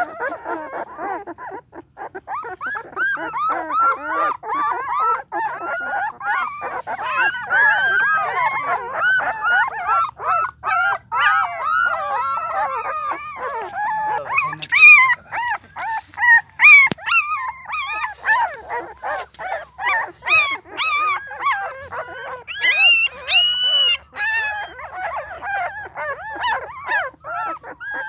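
A litter of young puppies whimpering and whining together: many short, overlapping high whines that rise and fall. Two bursts of louder, shriller yelping come a little past halfway and again about four-fifths of the way through.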